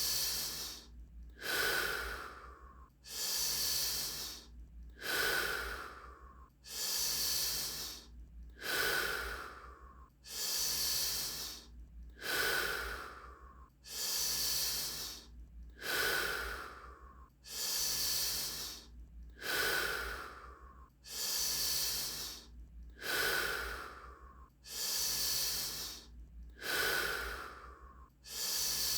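A person taking deep, rhythmic breaths in and out through the mouth, about one full breath every two seconds: the rapid power-breathing phase of a Wim Hof breathing round.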